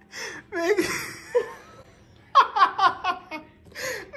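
A person laughing in several short breathy bursts, with a quick run of about six or seven 'ha-ha' pulses about two and a half seconds in.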